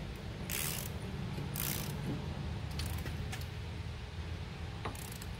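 Half-inch torque wrench ratcheting in a few short strokes on the rear axle nut of a Honda Pioneer 1000 as the nut is tightened toward 101 foot-pounds. A steady low hum runs underneath.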